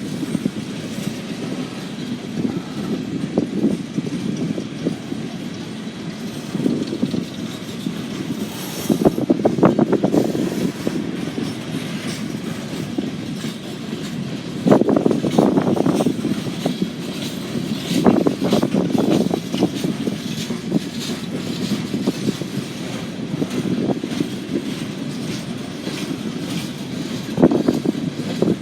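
CSX freight train's cars rolling past: a steady rumble of wheels on rail, with louder bursts of clacking as wheels cross rail joints every few seconds.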